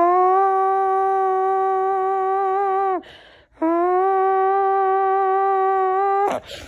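A person's voice holding a long, steady sung note, then a quick breath, then the same note held again for nearly three seconds.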